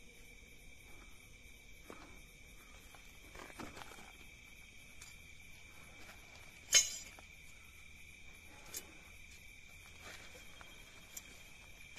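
Crickets chirping steadily, with a few soft scrapes on gravel and one sharp click about seven seconds in, the loudest sound, followed by two fainter clicks.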